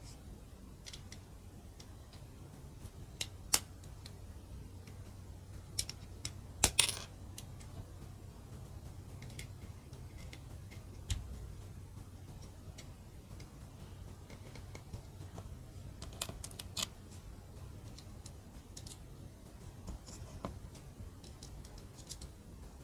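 Small plastic mini building bricks clicking and tapping as they are handled and pressed together: an irregular scatter of sharp clicks, with the loudest cluster about seven seconds in.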